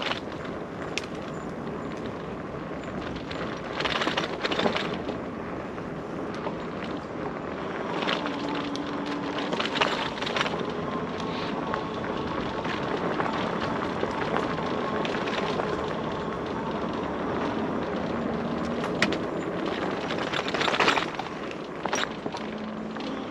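E-bike rolling along a rough dirt trail, its tyres crunching over stones and twigs with scattered clicks and crackles. A faint electric-motor whine comes and goes and rises in pitch near the end.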